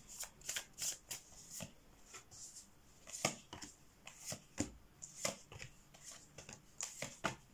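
Tarot cards handled and dealt by hand onto a cloth-covered table: a quick run of soft card flicks and snaps in the first couple of seconds, then separate card slaps spaced about a second apart as the cards are laid down.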